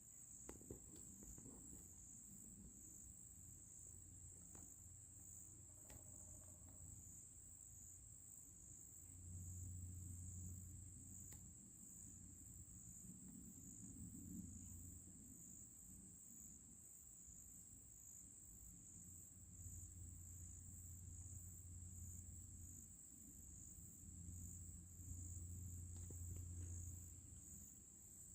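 Faint, steady high-pitched trilling of an insect chorus, crickets or katydids, with a faint low rumble that swells and fades several times.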